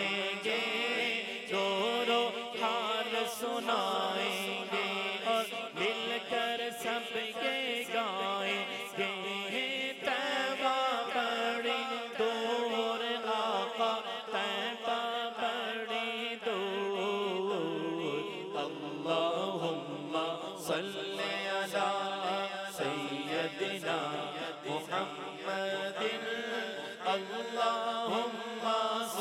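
A man's voice singing a naat, an Urdu Muslim devotional song, in long, drawn-out melodic lines into a microphone.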